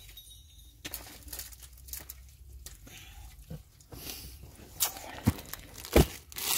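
Plastic packaging being handled, rustling and crinkling in scattered small bursts, with two sharp knocks near the end.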